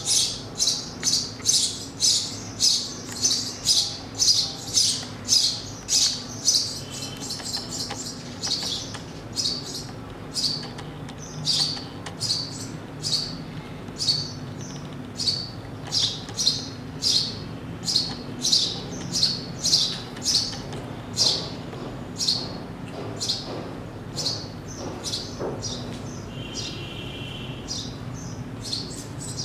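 Sparrow chirping over and over, short high chirps about twice a second, thinning out twice and picking up again.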